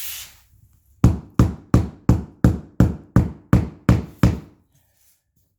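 Mallet tapping a hickory waterproof hardwood floor plank about ten times in a steady run, roughly three knocks a second, to seat the plank's click-lock lap joint.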